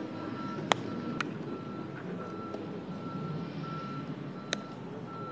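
A vehicle's reversing beeper sounds a steady string of short high beeps, about two to three a second, over low background murmur. Three sharp cracks from the fielding drill cut through it, the loudest a little under a second in.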